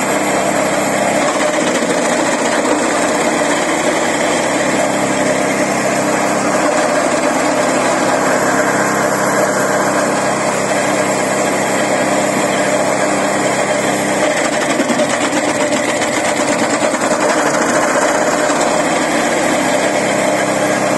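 The small petrol engine of an ARPAL branch chipper runs steadily under load while long branches are fed into its chute and cut. Its low tone shifts a few times along the way.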